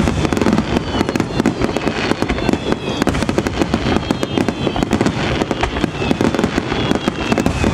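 Aerial firework shells bursting in a dense barrage: a rapid, near-continuous run of bangs and crackles with no pause.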